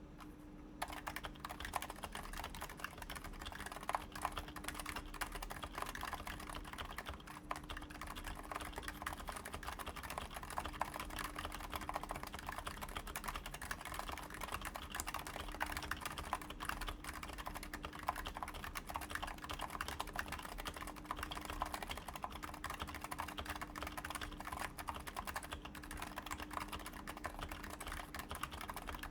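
Continuous typing on a Topre Realforce 87u keyboard in a Digilog case with a steel plate, Topre 55g electrostatic-capacitive switches, silenced with purple sliders and lubed, wearing URSA PBT doubleshot keycaps: a steady stream of keystrokes that starts about a second in.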